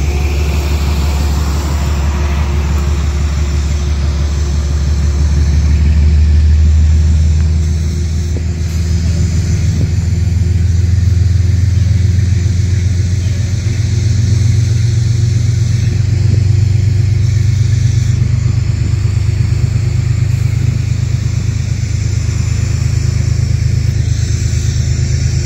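Diesel transit bus engine running with a loud, steady low rumble, its pitch rising a little about ten seconds in as it pulls away under power.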